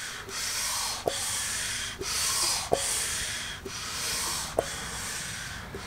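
383 Mopar big-block's crankshaft being turned over by hand with a ratchet, with the first piston and rod fitted: a repeated swishing drag, about one stroke a second, with a sharp click of the ratchet between strokes.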